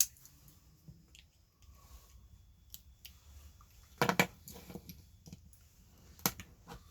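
Hand tools clicking and snapping against a small circuit board while a soldered part is pried or cut loose, with a sharp click at the start, the loudest cluster of snaps about four seconds in and another snap near the end.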